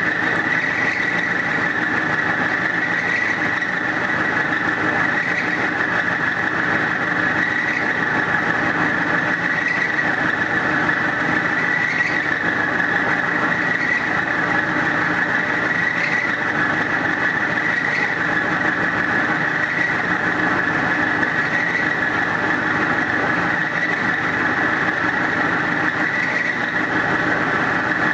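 Milling machine spindle turning an end mill at about 350 RPM as it roughs a wrench flat into a round metal part. A steady whine of the cutter and spindle, with faint small swells about every two seconds.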